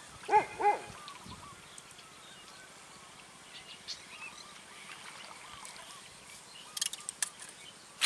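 Two short, loud animal calls in quick succession near the start, then a faint outdoor background with a few sharp clicks near the end.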